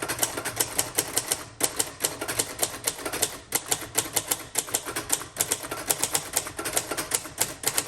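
1958 Royal Futura 800 manual typewriter being typed on fast and steadily: an unbroken run of typebar strikes, several a second.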